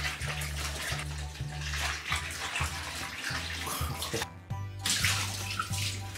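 Kitchen tap running into the sink as dishes are washed, a steady splashing hiss over background music; the water breaks off briefly about four seconds in, then runs again.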